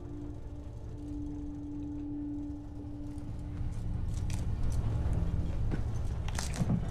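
Low, steady rumble of a moving train, growing louder about halfway through. A held music note fades out in the first few seconds. Near the end come a few crisp crunches of teeth biting into a toasted grilled cheese sandwich.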